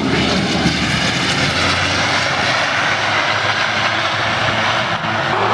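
ATR72-600's twin Pratt & Whitney PW127 turboprop engines running with a steady drone.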